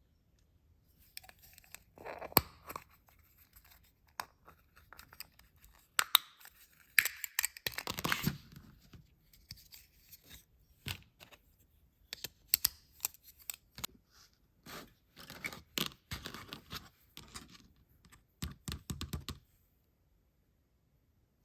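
Toy packaging being handled and opened: crinkling, ripping and clicking in irregular bursts, stopping near the end.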